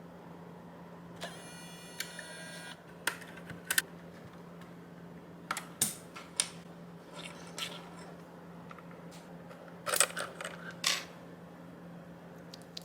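Scattered sharp plastic clicks and clacks from the Keychron K6 mechanical keyboard and its parts being handled, with a quick rattle about a second in and a cluster of clicks near the end. A steady low hum runs underneath.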